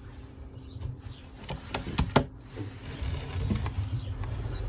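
Scattered light clicks and taps with soft scuffling, from racing pigeons moving about in the loft, over a low rumbling noise.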